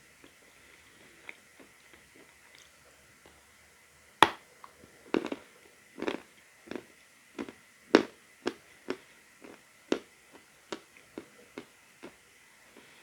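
A person biting into a lump of natural chalk with one loud sharp crack about four seconds in, then crunching it between the teeth, about two crunches a second until near the end.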